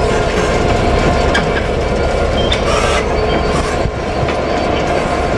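DB Cargo Class 66 diesel locomotive, with its two-stroke V12 engine running at a steady low rumble, hauling a train of wagons slowly past. A few sharp clicks and knocks of wheels over rail joints are heard along with a faint wheel squeal.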